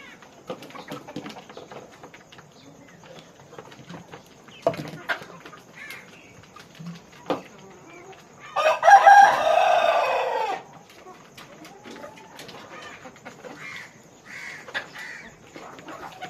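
A rooster crows once, a loud call of about two seconds near the middle that drops in pitch at its end. Chickens cluck around it, with short quieter calls and scattered knocks.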